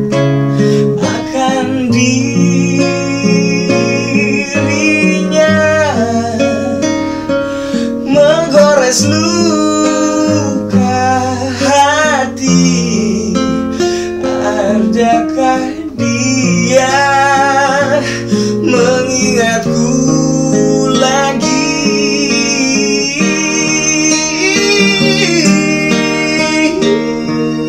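Acoustic guitar strumming chords under a solo singer, an acoustic pop ballad sung in Indonesian. The voice holds long notes with a wavering vibrato.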